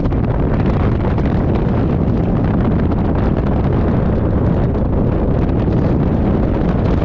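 Steady rush of wind buffeting the microphone, with tyre and road noise from a car moving at highway speed.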